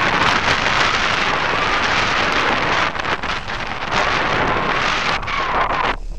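Wind rushing over a camera mounted on a hang glider's wing in flight, a loud steady buffeting noise that drops briefly at the very end.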